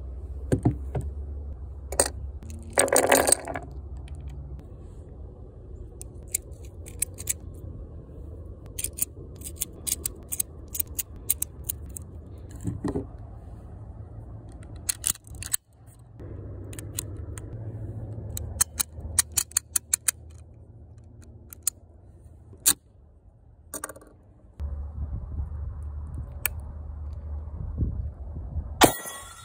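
Metal clicks and rattles of a C96 Mauser Bolo pistol being handled and loaded, with runs of quick clicks as cartridges are pushed from a stripper clip down into its fixed magazine. One gunshot near the end.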